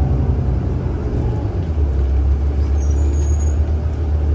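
New York City subway train running, a steady low rumble heard from inside the car, with a brief faint high squeal about three seconds in.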